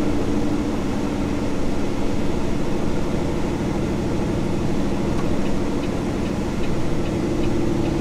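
Semi truck's diesel engine running steadily as the rig rolls slowly, heard from inside the cab: an even low hum with no sudden changes.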